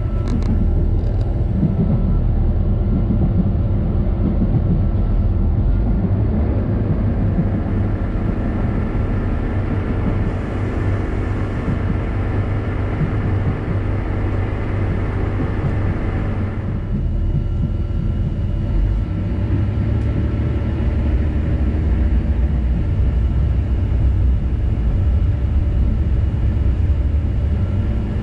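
Inside the cabin of a narrow-gauge Feve diesel multiple unit under way: a steady diesel drone with the rumble of wheels on the track. A higher rushing noise eases off about two-thirds of the way through.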